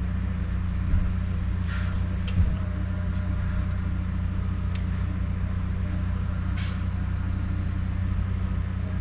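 A few light metallic clicks and clinks while piston rings are worked from an old piston onto a new one, over a steady low hum.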